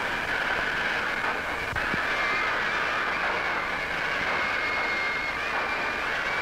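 Passenger train running, a steady rushing noise with high, wavering squeals over it and a short knock about two seconds in.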